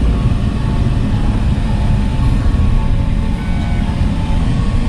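Steady low road and engine rumble inside the cabin of a moving passenger van.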